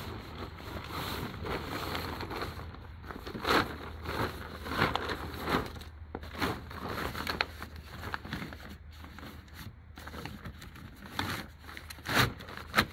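A tarp and a fabric snowmobile cover rustling and crinkling as they are pulled over a snowmobile and tucked down, with irregular louder crackles, the sharpest near the end.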